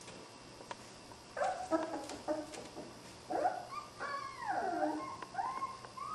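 Border Collie puppies whining and yipping as they play-wrestle: a string of short high calls rising and falling in pitch, starting about a second and a half in.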